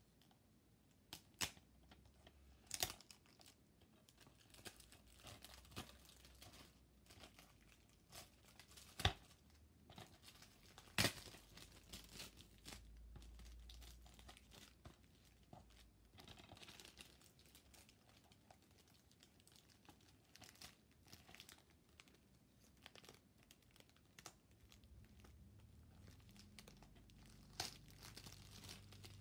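Faint crinkling and tearing of clear plastic wrapping being peeled off a disc case and handled, with several sharp clicks from the case and fingernails, the loudest in the first half.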